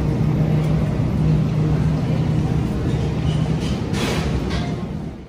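Steady low hum of supermarket refrigerated display cases and store ambience, with a brief rustle about four seconds in. It fades near the end and then cuts off.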